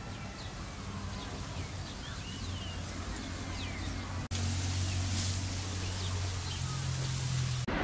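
Small birds chirping and calling over a steady low hum of outdoor ambience. About four seconds in, the sound cuts abruptly to a louder hiss with a steady low drone, and a few bird calls still come through.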